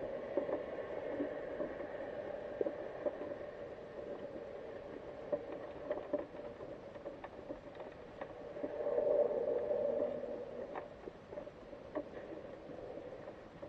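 Muffled underwater ambience heard through a camera's waterproof housing inside a wire-mesh crawfish trap: a steady dull hum with scattered faint clicks and ticks. It swells briefly about nine seconds in.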